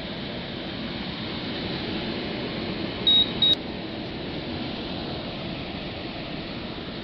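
Fedders 12,000 BTU window air conditioner running with a steady rush of fan air. A little over three seconds in, its electronic control panel beeps twice, a short high tone and then a shorter one.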